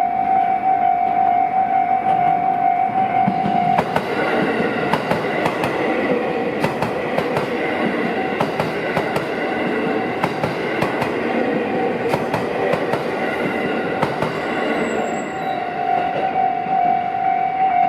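Level-crossing warning bell ringing steadily. About four seconds in, an electric express train runs over the crossing for some eleven seconds, a loud rush with scattered sharp clicks of wheels over rail joints that drowns out the bell. The bell rings clearly again near the end.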